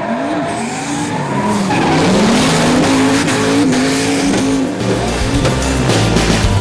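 Turbocharged 6.2-litre GM LS2 V8 in a drifting Nissan S15 Silvia, revs rising and falling, with tyres squealing. Music fades in near the end.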